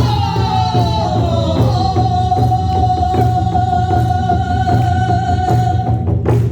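Korean sori singing to buk drum: a voice slides down onto one long held note over steady drum beats, and the note stops near the end with a drum stroke.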